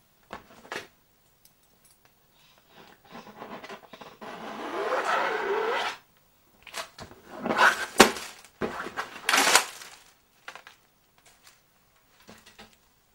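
Artist's canvases being handled: a long scraping rub with a wavering pitch, then a quick run of knocks and rubbing, the sharpest knock about eight seconds in.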